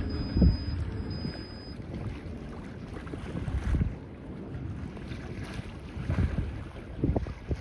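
Wind buffeting the microphone in gusts, heard as low thumps and rumbles over a steady rush of wind and choppy water.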